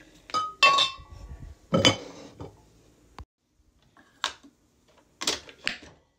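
A ceramic lid clinks on a pink ceramic pumpkin canister with a short ringing note, then knocks once as it settles. Later come sharp plastic clicks as a capsule is set into a Nespresso Vertuo coffee machine, and two clicks near the end as its head is pressed shut and locked.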